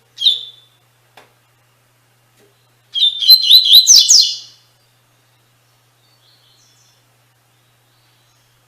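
Double-collared seedeater (coleiro) singing the 'tui tui' song type. A single short high note comes first, then a few seconds later a quick phrase of rapid, high, sweeping notes lasting about a second and a half.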